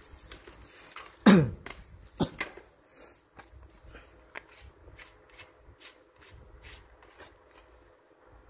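Fishing rods and tackle being handled: a loud scraping slide that falls in pitch about a second in, a sharp knock a second later, then light clicks and taps of rod parts.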